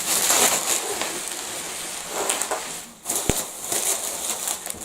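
Crinkling and rustling of packaging as a parcel is unwrapped, with a sharp click about three seconds in.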